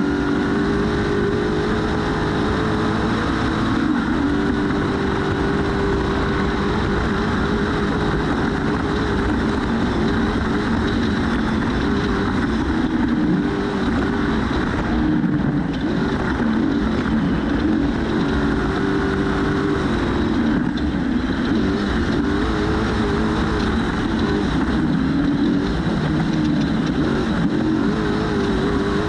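Trophy truck's race engine running hard at speed, its note rising and falling over and over with throttle and shifts, over a loud, steady rush of driving noise heard from on board.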